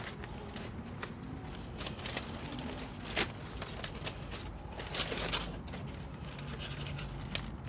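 Aluminium foil crinkling and crackling as it is pulled open from around a rack of smoked pork ribs, with irregular crackles throughout and a sharper crack about three seconds in.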